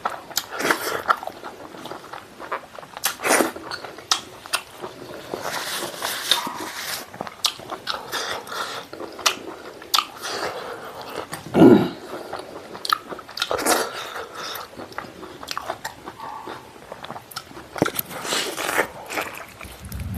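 A person chewing cooked pork stomach, with many irregular wet mouth clicks and smacks, and one louder, lower smack a little past halfway.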